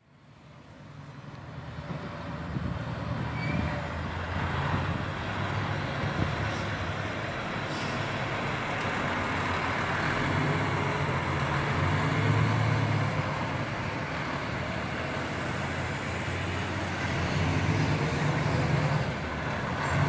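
Diesel engine of a 2010 Spartan Gladiator Classic aerial ladder truck running as the truck drives slowly past, fading in over the first couple of seconds and then holding steady with a low hum that rises and falls a little. No siren, as it is responding routine.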